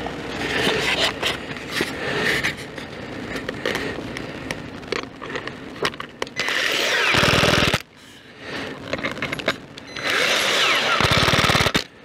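Impact driver chattering as it drives washered screws through foam insulation panels into a wooden beehive box, in two runs of about a second and a half each, the first about six seconds in and the second about ten seconds in. Clicks and handling noises of screws and panels before them.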